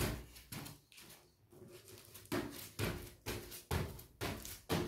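Sneakers thudding on a woven mat over a tile floor as a child repeatedly jumps and lands. A quick run of landings in the first second, a lull, then a steady run of thuds about every half second.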